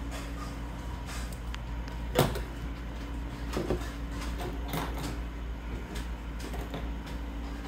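Scissors cutting and being set down on a tabletop while small pieces of plastic and electrical tape are handled: a few sharp clicks and knocks, the loudest about two seconds in, over a steady low hum.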